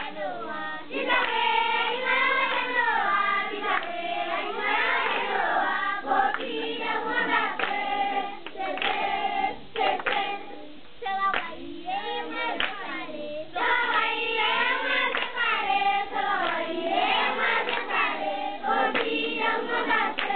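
A group of children singing together, with some hand clapping.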